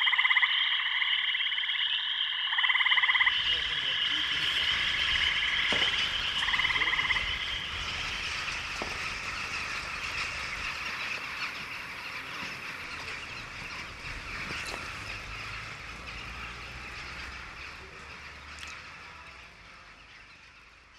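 Frogs croaking in rattling bursts, four in the first seven seconds, over a steady high-pitched chorus; the sound then thickens into a dense chorus of calls that slowly fades away.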